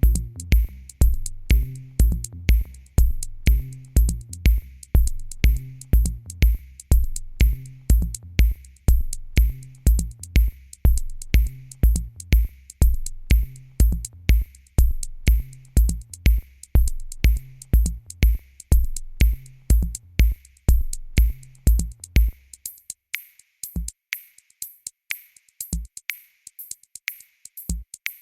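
Background electronic music with a steady drum-machine beat and bass line. About three-quarters of the way through, the bass and heavy beat drop out, leaving light ticking percussion with an occasional kick.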